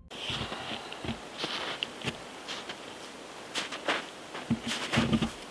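Footsteps in snow, short irregular steps about one to two a second over a faint steady outdoor hiss.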